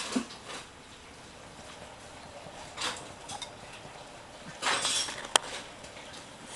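Blue plastic hamster ball wheel on its wire stand rattling and clattering in bursts as a golden hamster runs in it, with a sharp click a little past five seconds.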